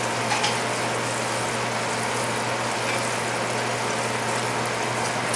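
A pan of chicken, onions and tomato sauce cooking on the stove: a steady low sizzle and simmer, with a constant low hum underneath.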